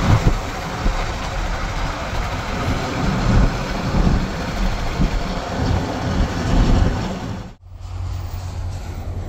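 Wind and tyre noise of a car driving at highway speed, heard from inside the car, with an uneven low rumble. About seven and a half seconds in it cuts to a quieter, steady low hum.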